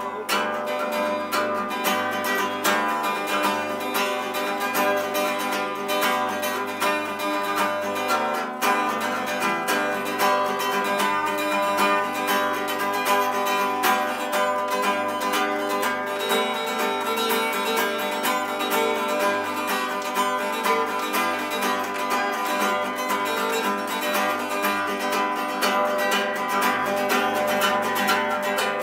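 Acoustic guitar playing an instrumental passage between sung verses: a steady run of plucked notes with no voice.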